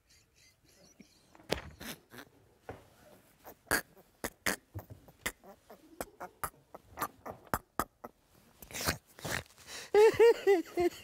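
A man laughing hard: a long run of short, breathy bursts of stifled laughter, breaking into high-pitched open laughter about ten seconds in.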